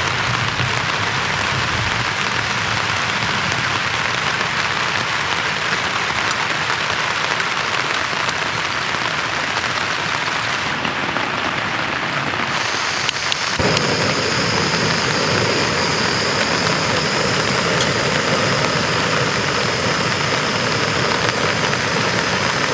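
Steady rain pattering on a tarp overhead. About two-thirds of the way through, a second steady hiss with a faint high tone joins in, as of a Jetboil gas stove being lit to boil water.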